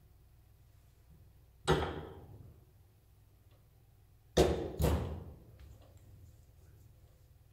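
Three knocks of heavy metal parts of a hydraulic steering cylinder being handled, one a little under two seconds in and two close together about halfway, each dying away briefly.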